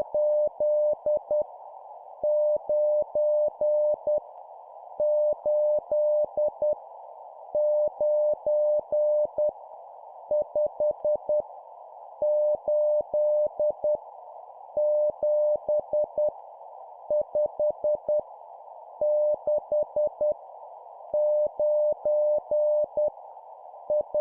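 Morse code at 10 words per minute, sent as a single steady beep tone keyed on and off, spelling random numbers: each digit is a group of five dots and dashes, with short pauses between digits. A steady hiss lies under the tone throughout.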